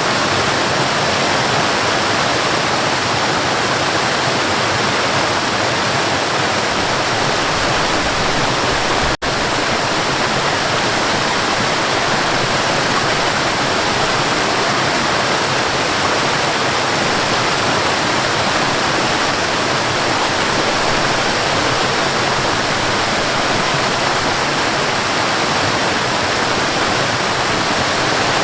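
Waterfall rushing steadily, a dense even roar of falling water. The sound cuts out for an instant about nine seconds in, then resumes unchanged.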